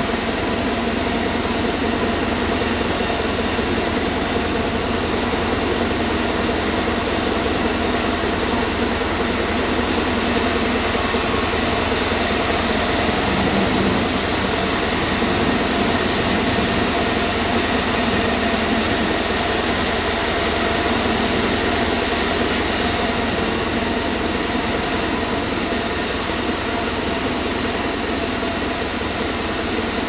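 Band sawmill running steadily while sawing a sonokeling (Indian rosewood) log into slabs. A loud, even mechanical drone with several held tones; its high hiss grows brighter about two-thirds of the way through.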